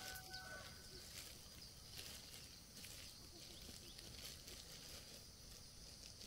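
Near silence: faint background hiss with a few soft, scattered ticks or rustles.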